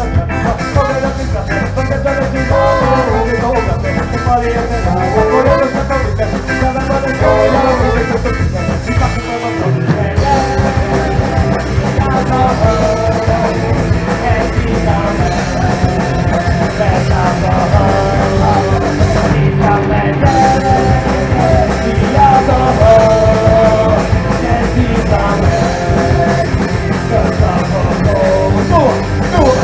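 A live punk rock band with a ska feel playing loudly: drum kit, electric guitars and singing.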